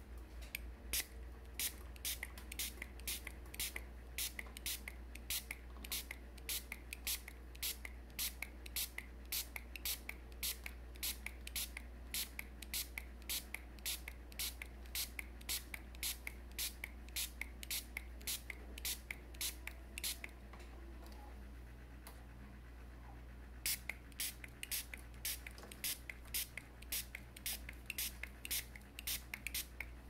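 Small hand-held spray bottle squirting water in quick repeated pumps, about three a second, with a break of a few seconds about two-thirds of the way through before the squirting resumes.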